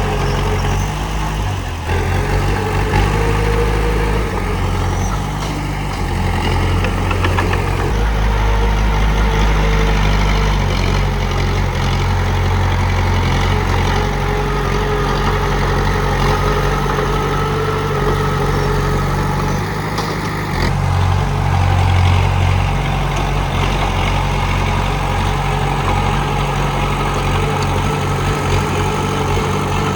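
Komatsu D31P bulldozer's diesel engine running steadily, its low note shifting a few times.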